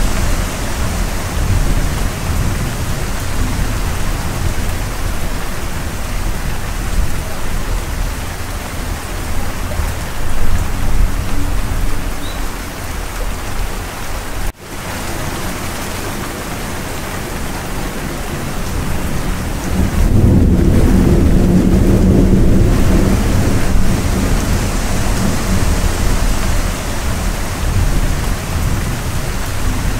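Steady heavy rain with thunder. A low rumble of thunder swells about two-thirds of the way through and rolls on for a few seconds. The sound cuts out for an instant about halfway.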